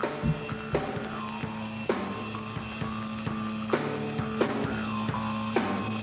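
Background music: a drum kit beat with bass drum and snare hits over held instrumental notes.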